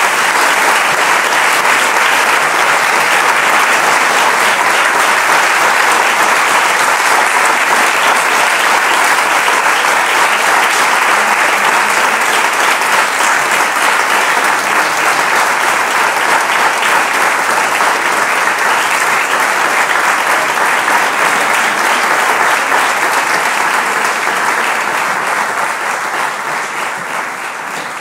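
Sustained applause from a concert audience, joined by the choir on stage, loud and steady, thinning and fading over the last few seconds.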